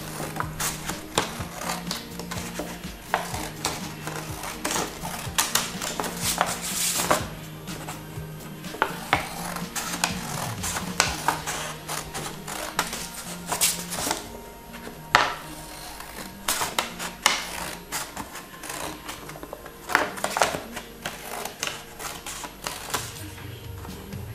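Scissors snipping through a large sheet of paper in a run of uneven cuts, with the paper rustling, over soft background music.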